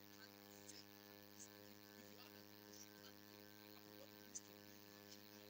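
Near silence: a steady electrical hum with a few faint ticks.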